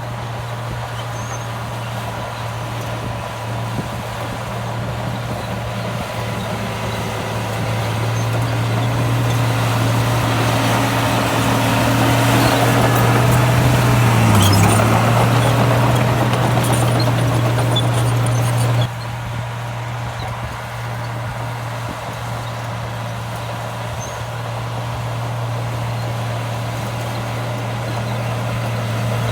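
Heavy diesel machine engine running steadily. It grows louder over several seconds, drops suddenly about two-thirds of the way through, then runs on evenly.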